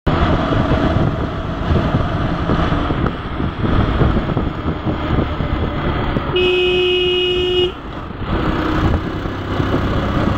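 Rush of wind and engine noise from a moving motorcycle, with a vehicle horn sounding once for about a second and a half a little past the middle.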